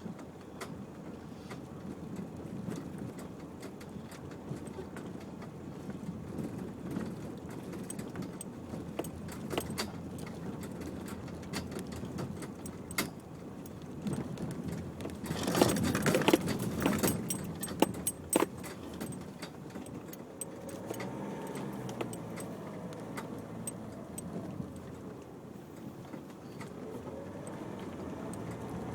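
Cabin noise of a Nissan X-Trail on a rough unsurfaced green lane: steady engine and tyre noise with frequent rattles and clicks over the bumps. About halfway through comes a loud cluster of jolts and clatter.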